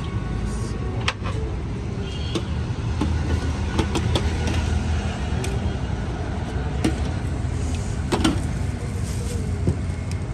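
Steady low rumble of road traffic and engines, with scattered sharp clinks of a steel ladle against a steel pot, bowl and plates as paya is served.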